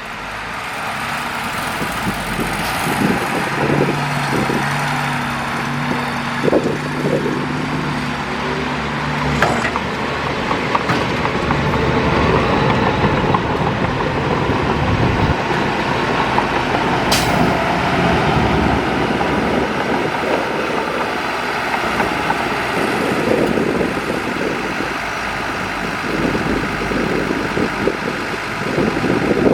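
Heavy diesel earthmoving machinery running steadily under load. Some steady low engine tones come and go in the first third, and a single sharp click-like sound comes about halfway through.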